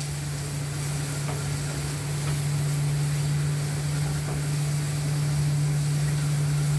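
Sliced onions sizzling as they sauté in hot oil in a pan, with faint stirring ticks, over a steady low hum.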